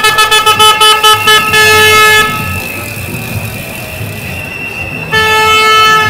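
A loud horn sounds in a fast run of short pulses and then a held blast ending about two seconds in. After a gap in which a thin high tone goes on, the horn sounds again, held, from about five seconds in.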